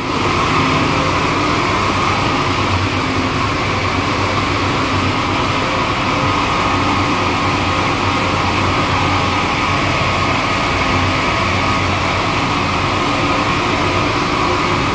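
Chiller-room machinery running: a steady, loud drone made of a low hum with a mid-pitched whine over it.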